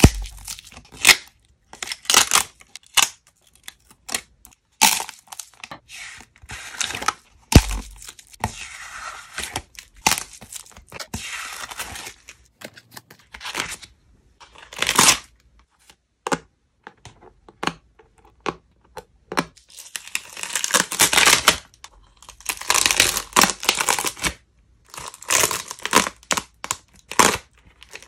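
Dried crispy film being peeled off plastic bowls: irregular sharp cracks and crinkly tearing. There are longer, louder stretches of peeling in the last third.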